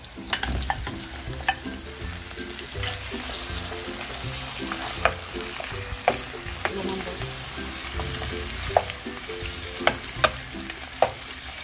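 Boiled pork trotters sizzling in hot oil in a frying pan as they are sautéed with garlic and onion. A wooden spatula stirring them knocks sharply against the pan about ten times.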